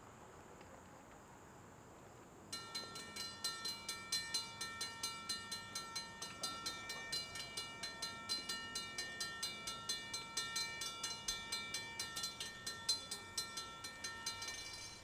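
A bell ringing rapidly, struck about four to five times a second with sustained ringing tones, starting suddenly a couple of seconds in and cutting off abruptly just before the end.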